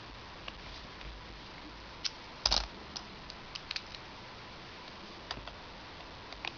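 Scattered small clicks and taps of plastic parts being handled, a USB adapter and pen drive being unplugged and plugged in, the loudest click about two and a half seconds in.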